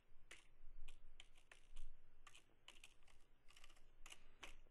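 Typing on a computer keyboard: a string of irregular, separate keystrokes, about three a second, fairly faint.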